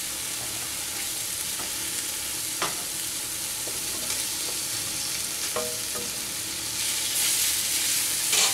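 Thick masala paste sizzling in oil in a non-stick kadai over medium flame while being sautéd, with a few knocks and scrapes of a wooden spatula. The sizzle gets louder near the end as fried potato pieces go into the pan.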